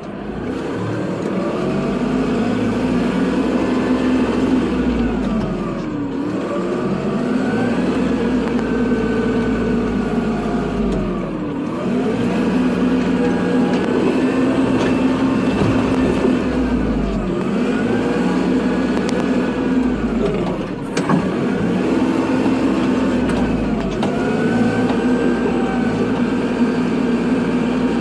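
Kubota tractor's diesel engine running while plowing snow. Its speed rises and falls in repeated swells every few seconds.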